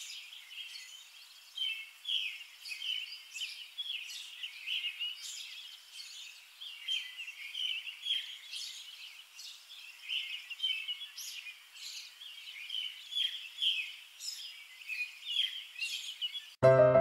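Birds chirping, many short high calls overlapping in a busy chorus. Piano music cuts in suddenly just before the end and is louder than the birds.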